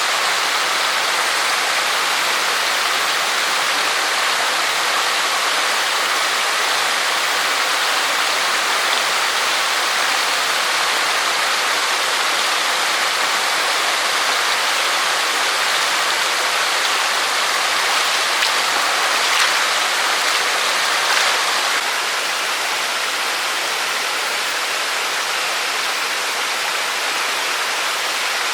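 Steady rain falling, an even hiss with no breaks, a little softer about three-quarters of the way through.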